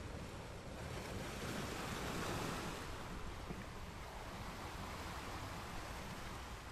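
Ocean waves breaking on a shore: a wave swells and crashes about two seconds in, then the surf settles back to a steady wash.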